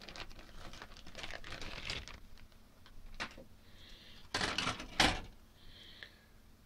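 Plastic model-kit sprues and their bag being handled: a run of light clicks and rustles, then three louder clatters in the second half.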